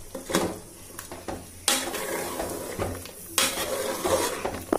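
Steel spoon stirring chicken curry in a pressure cooker pot, knocking sharply against the metal about four times, with food sizzling in the oil underneath.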